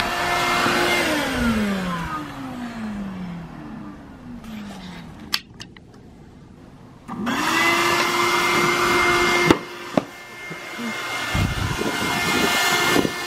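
Shop vac motor running with a steady whine, then switched off about a second in and winding down, its pitch falling away. A few clicks follow, and around seven seconds in it is switched back on, spins up and runs steadily again.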